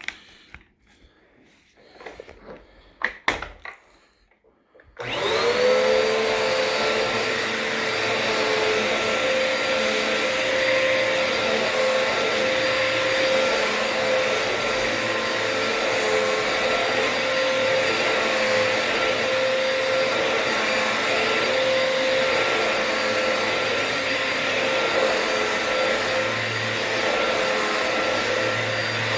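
A few clicks, then about five seconds in a Dirt Devil Multi-Surface Rewind upright vacuum cleaner, set to bare-floor mode, switches on. Its motor spins up and runs steadily with a constant whine.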